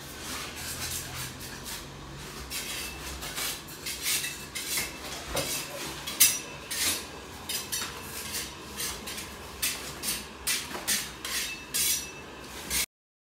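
Hard objects clinking and knocking irregularly, some strikes ringing briefly like dishes or utensils being handled; the sound cuts off suddenly near the end.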